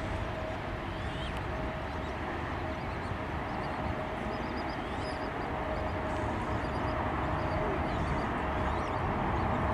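Jet engines of a twin-engine airliner at takeoff thrust just after lift-off, a steady jet roar with one steady tone running through it as it climbs away.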